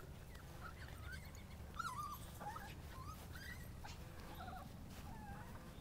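A dog whining in many short, high, squeaky whimpers, faint, over a steady low rumble.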